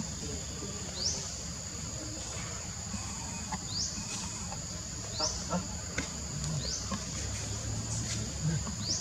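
Steady high-pitched insect drone, with a short rising chirp repeating about every one to two seconds.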